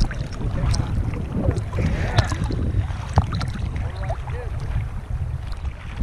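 Choppy sea water sloshing and splashing around a camera held at the water's surface, with scattered sharp splash clicks and wind buffeting the microphone.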